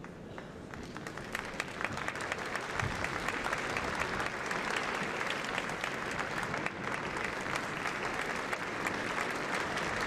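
Theatre audience applauding, the clapping swelling over the first second or two and then holding steady, as the conductor takes the podium before the act begins.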